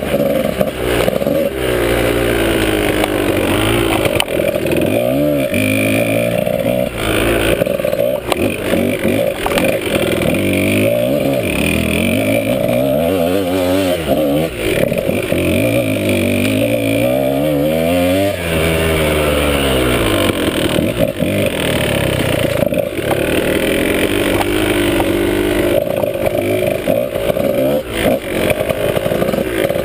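Dirt bike engine under load on a trail, its pitch rising and falling over and over as the throttle is opened and closed and the gears change, with one long drop in pitch a little past halfway.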